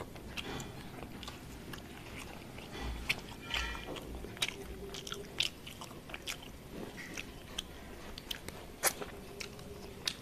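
Close-miked eating sounds: chewing and wet mouth clicks, mixed with light clicks of fingers picking food apart on a metal plate, scattered irregularly throughout.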